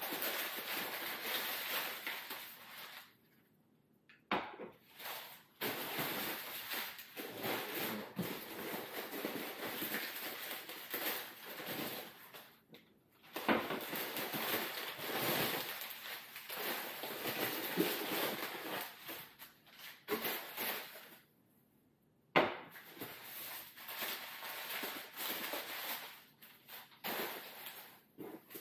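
Crumpled brown kraft packing paper rustling and crinkling as it is pulled out of a cardboard box, in stretches broken by a few short pauses. Now and then a knock or clink as glass jars are set down on a glass table.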